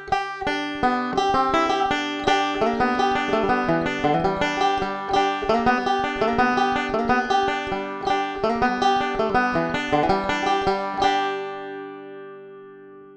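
Resonator banjo fingerpicked in quick rolling notes, heard through a Pick Up the World piezo pickup with EQ. About eleven seconds in the picking stops and a last chord rings on and fades.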